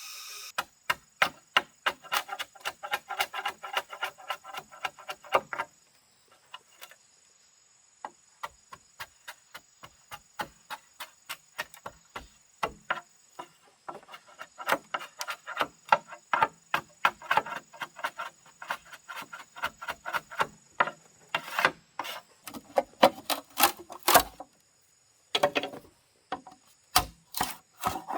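Runs of sharp, evenly spaced knocks, about three a second, of a tool striking wood, with a sparser stretch of lighter strokes in the middle and brief pauses near the end.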